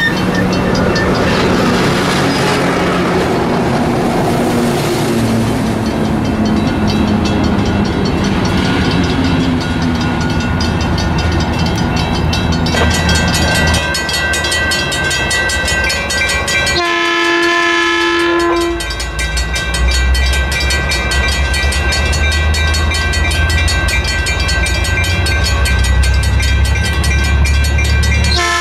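Metrolink bilevel passenger coaches rolling past with wheel and rail clatter. Then a grade-crossing bell rings steadily while an approaching Metrolink diesel locomotive's rumble grows. The locomotive sounds its multi-chime horn in one blast of about two seconds a little past halfway through, and starts another right at the end.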